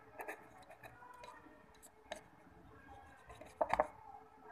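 A thin stick stirring a thick glue slime mixture in a small stainless steel bowl, scraping and tapping against the metal in scattered clicks, with a quick cluster of louder knocks near the end.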